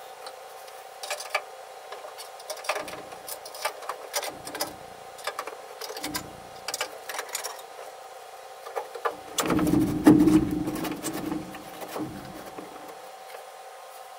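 Scattered light knocks and clatter of wooden boards and framing being handled, with a busier run of heavier thuds about nine to eleven seconds in, over a steady faint hum.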